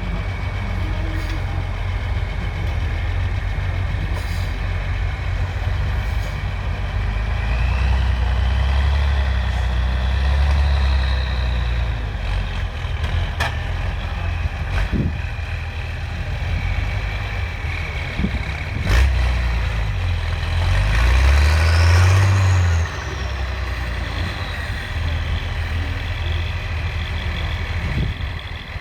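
Heavy competition truck's engine working hard over a trial section, revving up and down in surges, loudest about two-thirds of the way through, with a few sharp knocks.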